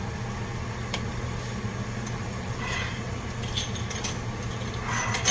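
Kitchen utensils and spice containers making a few light taps and clinks while spices are added to a soup pot, over a steady low hum.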